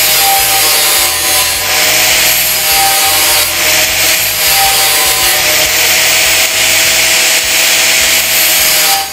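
Angle grinder running against the metal petrol tank, a loud grinding rasp over a steady, slightly wavering motor whine, cutting off near the end.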